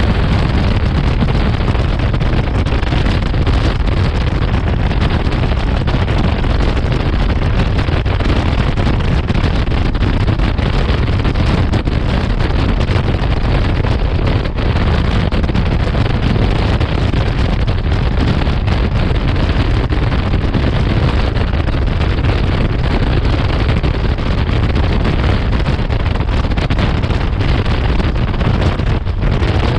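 Wind buffeting the microphone: a steady, loud rush of noise with heavy low rumble and no let-up.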